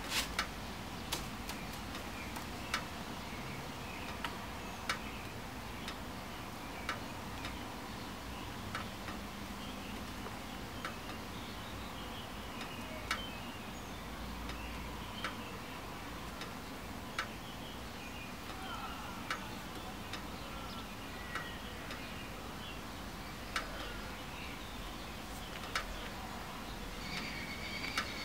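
Sharp, faint ticks at uneven intervals, roughly one every second or two, over a steady background hiss. Faint high chirps come in near the end.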